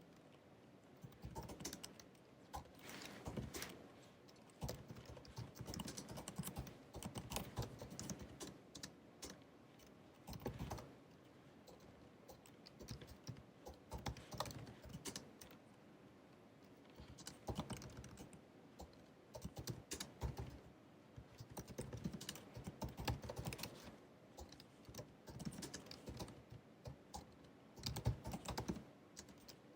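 Typing on the keyboard of a 16-inch MacBook Pro (2019): quick runs of soft key clicks in bursts of a few seconds, broken by short pauses.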